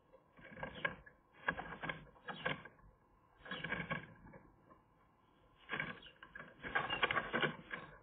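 Dry twigs and grass lining of a magpie nest rustling and crackling as a magpie shifts its weight in the cup and climbs out, in four bursts of close clicks with short quiet gaps between them.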